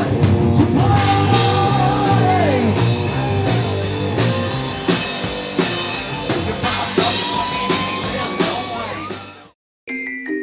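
Live rock band playing loudly: drum kit, guitar and singing. The band cuts off about nine and a half seconds in, and after a brief silence a different, gentler piece of music begins with a stepping, falling melody.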